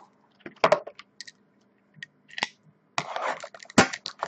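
Small sealed cardboard card boxes being handled and set down on a glass tabletop: scattered light taps and clicks, a brief rustle about three seconds in, and a sharper knock near the end.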